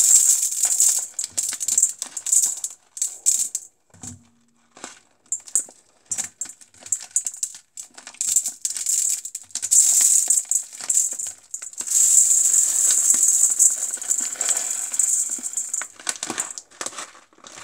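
Dry rice grains pouring and rattling into a metal colander in irregular spurts with short pauses, along with the crinkle of the plastic rice packet.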